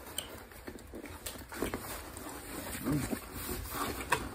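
Close-up chewing of a mouthful of shrimp, with the cardboard flaps of a shipping box being handled and pulled open: scattered small clicks and rustles.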